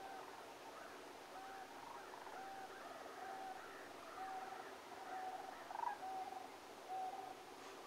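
A flock of sandhill cranes calling, many rolling calls overlapping, with one short note repeating about once a second.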